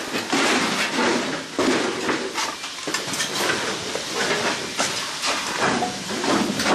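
Workers in protective suits moving over scattered debris: a continuous rustling, scuffing hiss of suit fabric and gear, wavering in loudness, with irregular footstep knocks on the rubble.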